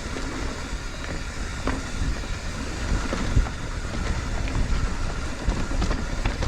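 Mountain bike rolling over rough trail: a steady low rumble with scattered clicks and knocks.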